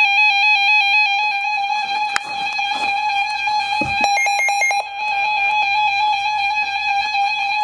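Electronic alert tone from a weather radio receiver: one steady, wavering beep-like tone. Partway through comes a short burst of quick pulses.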